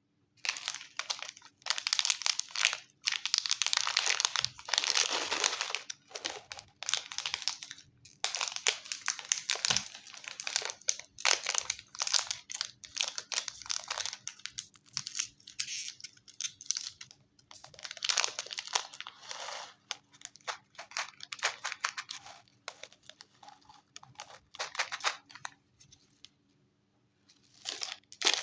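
Chocolate wrapper being crinkled and torn open in irregular bursts with short gaps, pausing briefly near the end.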